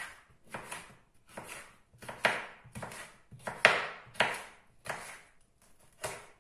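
Kitchen knife slicing a red bell pepper into thin strips on a wooden cutting board: a regular run of sharp cuts, about one and a half a second, each knocking through onto the board.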